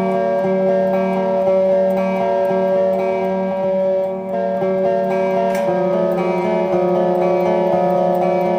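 Guitar chords ringing and held at the start of a black metal track, moving to a new chord a little past halfway.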